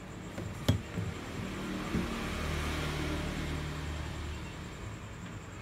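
Handling noise from a flat-screen TV being turned around on the bench. There is a sharp knock a little under a second in and a few smaller knocks, then a low rumbling scrape lasting about two seconds.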